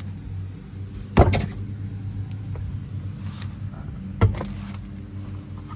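An alloy wheel and tire being handled as it comes off the hub and is laid down on pavement: two sharp knocks, the louder about a second in and another about three seconds later, over a steady low hum.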